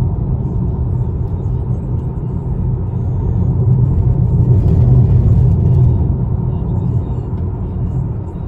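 Car cabin rumble of engine and road noise while driving, heard from inside the car. It builds over the first few seconds and eases slightly toward the end.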